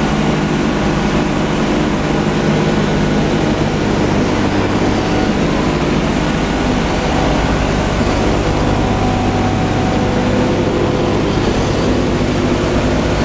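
Boeing B-17 Flying Fortress's four Wright R-1820 Cyclone radial engines and propellers running steadily in cruising flight, heard from inside the fuselage as a loud, even drone.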